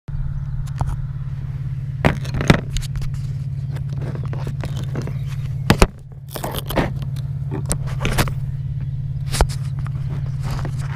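FPV quadcopter's brushless motors humming steadily at idle, with scattered scrapes and knocks as the drone and its camera shift against the dirt and grass. The hum briefly drops just before six seconds in.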